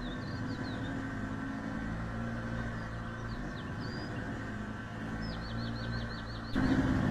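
Steady low machine hum, like an engine running, with a small bird chirping over it and giving a quick trill of about eight notes in the second half. A louder rushing noise cuts in suddenly near the end.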